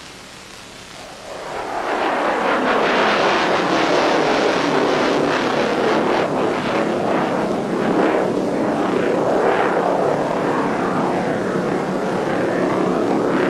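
Military jet aircraft engine noise. A low hiss opens, then about one and a half seconds in a loud rushing jet sound fades in and runs on steadily, swelling and easing a little.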